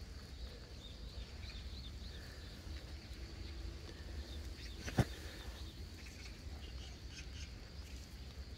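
Faint outdoor ambience: scattered bird chirps over a steady high insect-like trill, with a low rumble underneath. A single sharp click about five seconds in is the loudest sound.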